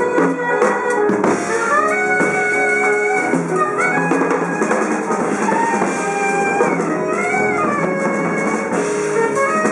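Live jazz band playing: an alto saxophone solos in long held notes with slides up and down, over a drum kit and the rest of the rhythm section.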